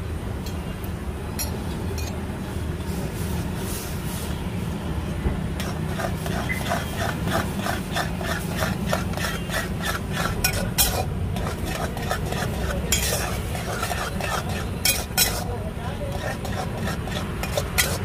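A metal spatula stirring noodles in boiling water in a metal wok, with quick repeated scraping strokes against the pan from about six seconds in and a few sharper clinks, over the steady rush of a gas burner.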